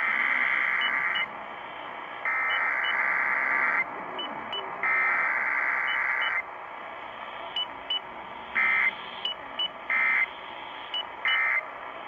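Emergency Alert System digital data tones received over AM radio: three long warbling bursts of the SAME header, about a second apart, then three short bursts, over steady radio static.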